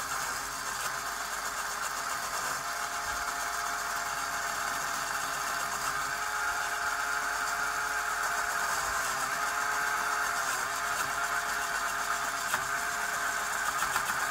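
LEGO Power Functions XL motor running steadily, turning a driveshaft through a homemade LEGO Technic CV joint that is swung to sharp angles; a steady whine whose pitch dips briefly a few times as the load on the joint changes.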